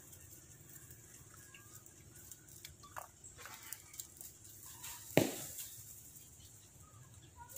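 Quiet outdoor forest ambience: a steady high hiss with scattered short chirps and clucks, and one sharp knock about five seconds in.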